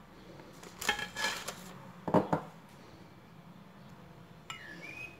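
Silicone pastry brush stirring an egg-yolk, butter and cream mixture in a small glass bowl, knocking against the glass in a few sharp clinks, the loudest just after two seconds. A brief high squeak near the end.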